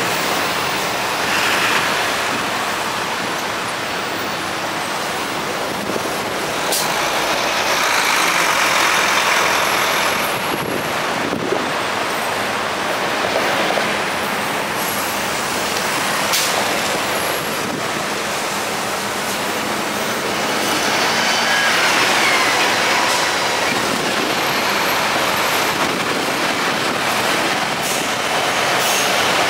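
Slow stop-and-go traffic of cars and diesel coach buses entering the Lincoln Tunnel: a steady mix of engine and tyre noise with a few short clicks. A brief high squeal comes about two-thirds of the way through.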